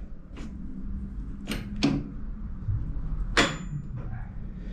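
Steel brake linkage on a 7¼-inch gauge steam locomotive chassis being worked by hand: four light metallic clicks and clunks, the last one followed by a brief high ring.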